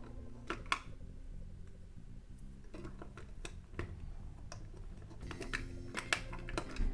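Plastic LEGO plates and bricks clicking as they are handled and pressed together: a few scattered clicks, then a quicker run of them near the end.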